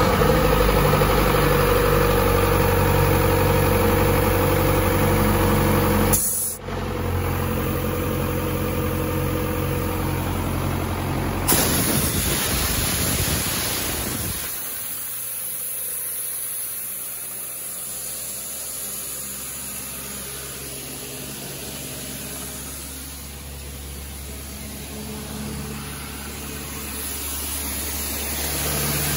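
Ingersoll Rand P375 portable air compressor's mechanical Cummins diesel engine running steadily with a pitched drone. About eleven seconds in, a burst of rushing noise lasts about three seconds, after which the machine runs noticeably quieter, growing louder again near the end.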